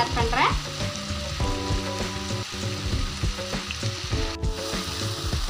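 Thick onion-and-tomato masala sizzling in a frying pan while a wooden spatula stirs and scrapes through it.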